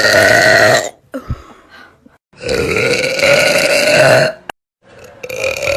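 A woman belching loudly in long, drawn-out, pitched burps: one trails off about a second in, a long one of about two seconds follows in the middle, and another starts near the end.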